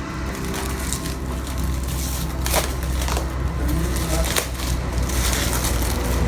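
Cardboard box and its packing tape being torn open by hand, with several sharp rips and cracks over a steady low rumble.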